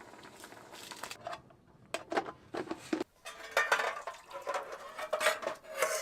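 Metal cookware and utensils clattering: a series of knocks, clinks and short scrapes, thickest in the second half.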